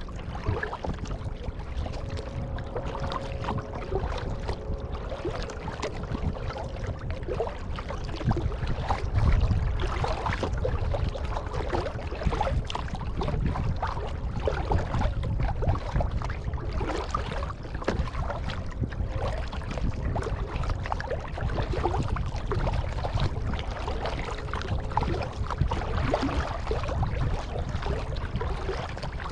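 Kayak paddle dipping and pulling through the water, with irregular splashes and drips over a steady low rumble.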